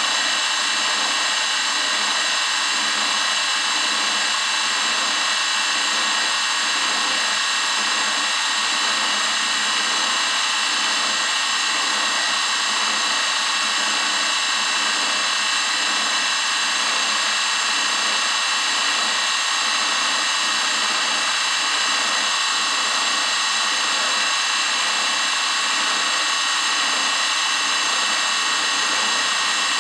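Grizzly G0704 benchtop milling machine running steadily with a steady high whine, its small end mill taking light cuts from a metal part that is fed in by hand.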